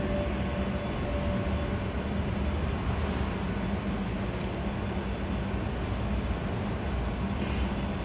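Steady low rumbling background noise with a faint steady hum, like machinery or traffic running nearby.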